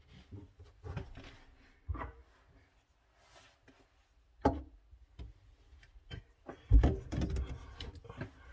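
Knocks and scrapes of hands and a plastic nut tool working at a faucet's brass mounting nut under a kitchen sink: a few separate knocks, then from near seven seconds in a busier, louder run of scraping and bumping.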